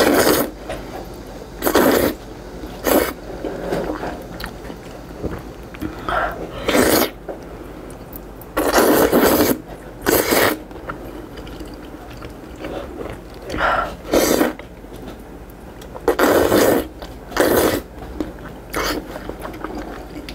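Noodles being slurped from a bowl of spicy soup: about nine loud, hissy slurps, each under about a second, with softer mouth and chewing noises between.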